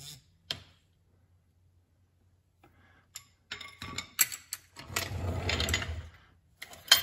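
Handling noise: a few sharp clicks and knocks, and about a second of cloth rustling close to the microphone as a shop rag is moved.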